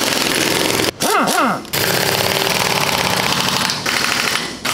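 Impact wrench hammering as it runs bolts down on a tank's final drive housing, in two long bursts. About a second in it stops briefly and gives a short rising and falling whine.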